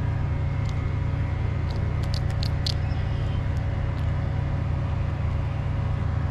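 Steady low rumble with a faint steady hum above it, and a quick run of sharp clicks a little after two seconds in.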